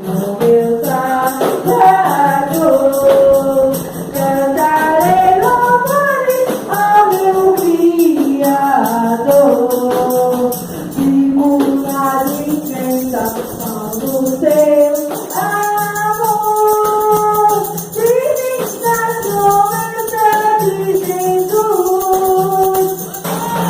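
A worship song sung with a tambourine jingling along throughout.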